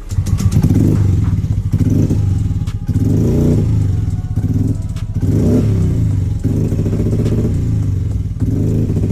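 Yamaha Mio Gear scooter's fuel-injected single-cylinder engine running unevenly, its note dipping and picking up again every second or so. This is the misfiring, stumbling running of a scooter with a hard-start and sputtering fault.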